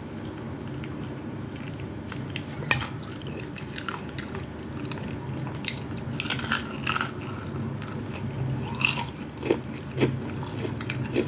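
Close-miked eating sounds: a person chewing and biting food, with scattered crunches and wet clicks over a steady low hum.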